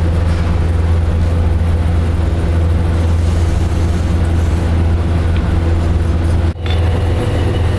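Heavy machinery in a brass-pipe workshop running with a loud, steady low hum. The sound drops out for a split second about six and a half seconds in.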